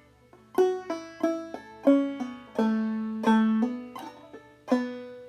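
Five-string banjo played clawhammer style: a slow phrase of single plucked notes and brushed chords, with hammer-ons lifting the pitch of some notes just after they are struck.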